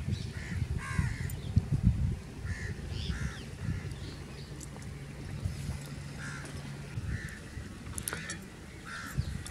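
Crows cawing, a string of short calls every second or so, over a low rumble.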